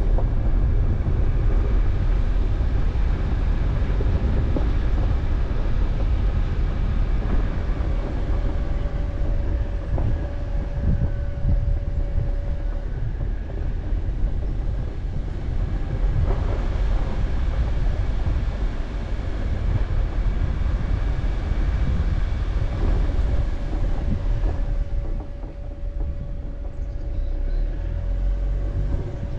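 A vehicle driving on a dirt road: a steady low rumble of tyres and suspension over gravel, with a thin steady whine that comes and goes twice.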